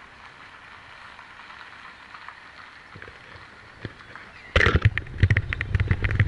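Quiet open-air background, then about four and a half seconds in a sudden loud, uneven rumble and crackle of wind buffeting the camera's microphone.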